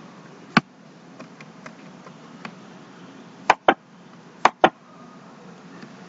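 Sharp computer mouse clicks: a single click about half a second in, then two quick double clicks a second apart around the middle, with a few fainter ticks, over a steady faint room hiss.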